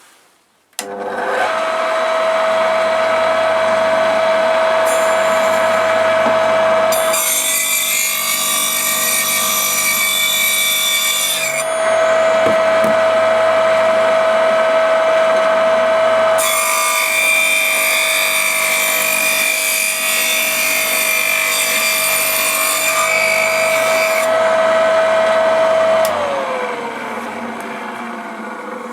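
Small homemade table saw with a fine-toothed metal-cutting disc and a 550 W, 3000 rpm capacitor-run electric motor. The motor starts with a steady whine, the disc makes two long cuts along a wooden bar to take out a rabbet, then the motor is switched off and the whine falls as it spins down.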